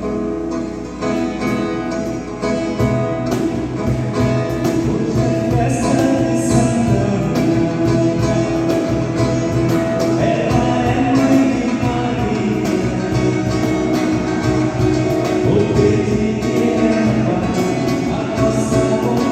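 A church music group playing a gospel-style hymn with guitar and voices. A steady low beat comes in about three seconds in.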